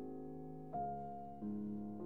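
Slow background piano music, with sustained notes and a new note struck twice.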